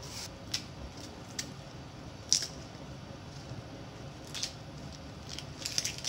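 Wet frill lettuce leaves being handled in a plastic colander: scattered short, crisp crackles and squishes, one louder snap about midway and a quick run of them near the end.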